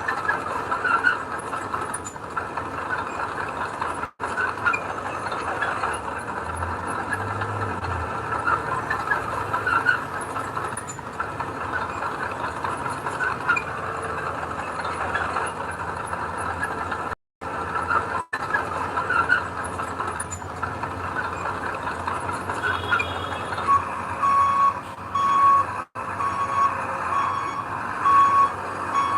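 Earthmoving machinery running steadily, with scattered metallic squeaks. From about 23 seconds in, a reversing alarm beeps at an even rate to the end. The sound cuts out briefly a few times.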